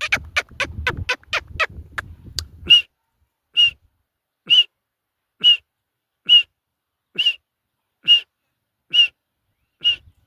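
Partridge chick calling: a fast run of short, sharp peeps over a low rustle for the first few seconds, then single peeps about once a second.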